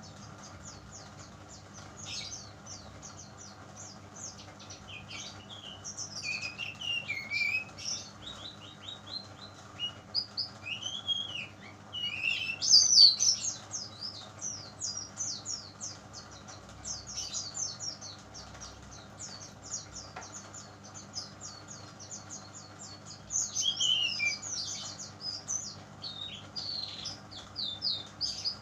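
Young brown-chested jungle flycatcher (sikatan rimba dada coklat, SRDC) chirping in rapid runs of short, high, down-slurred notes with a few lower warbled phrases, loudest about halfway through. A wild-caught juvenile already singing actively ("gacor").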